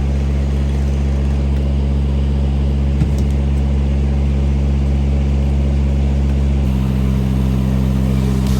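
An engine running steadily at a constant speed, its tone shifting slightly about two-thirds of the way through.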